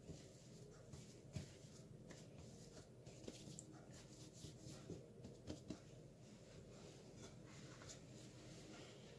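Faint rustling and soft pats of hands kneading a floured ball of whole-wheat bread dough on a countertop, with a few light taps.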